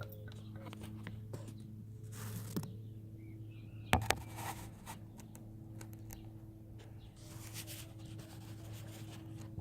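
Light clicks and scrapes from handling things by hand, with one sharp knock about four seconds in, over a steady low hum.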